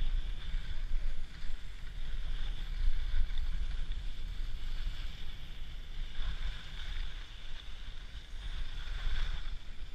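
Wind rumbling on the microphone of a skier's camera moving downhill, over a hiss of skis sliding and scraping on packed snow that swells a few times.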